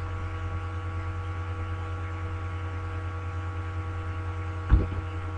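Steady electrical mains hum with a stack of steady higher tones above it, and one short low thump near the end.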